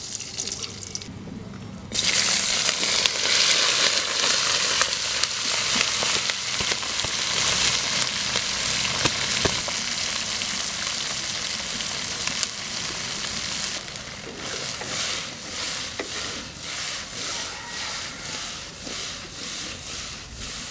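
Small whole fish frying in hot oil in an aluminium wok: a quieter sizzle that jumps loud about two seconds in and holds. From about two-thirds of the way through, the sizzle swells and falls in a steady rhythm as the fish are stirred and turned with a spatula.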